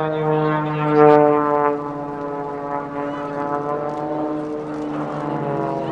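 Propeller-driven aerobatic plane's engine droning as it flies past. It is loudest about a second in, and its pitch then falls slowly as it moves away.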